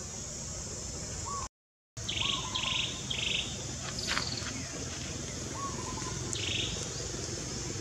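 Birds calling in short chirping notes, repeated several times, over a steady high-pitched insect drone. The sound cuts out completely for about half a second near the start.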